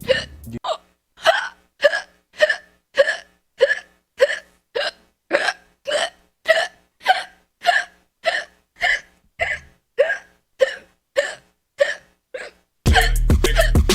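A person hiccupping over and over, about twenty short, voiced hiccups, a little under two a second, evenly spaced. Loud music cuts in just before the end.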